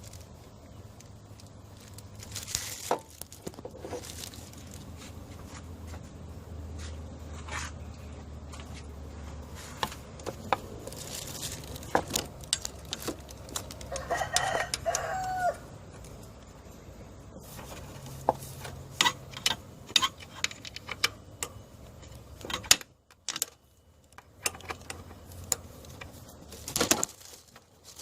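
A rooster crows once, about halfway through, over scattered clicks and knocks from tool work.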